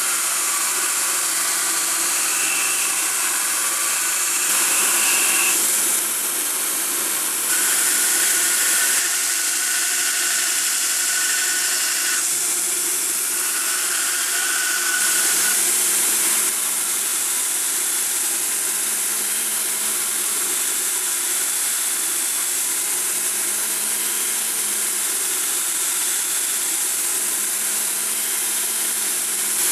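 Belt grinder running with a forged steel hammer head pressed against the abrasive belt: a steady, hissing grind that gets louder for a second or two at a time, several times.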